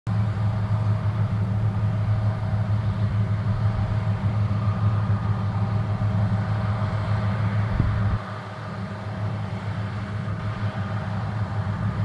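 John Deere X9 1100 combine running under load while harvesting, a steady drone of engine and threshing machinery. The deepest rumble drops away about eight seconds in and the sound gets a little quieter.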